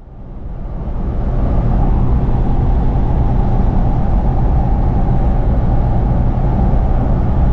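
Toyota Troop Carrier driving: steady engine and road rumble, fading in over the first couple of seconds and then holding steady.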